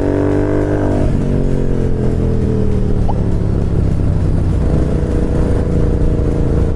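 Royal Enfield Continental GT 650 parallel-twin engine with a slip-on exhaust under way. The revs climb, drop sharply at a gear change about a second in, then fall away gradually as the throttle eases and settle to a steady run.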